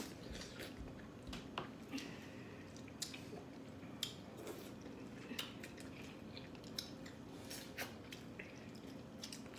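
Faint, close eating sounds from people biting into corn on the cob and eating seafood by hand: soft wet chewing and mouth smacks, with short sharp clicks every second or so.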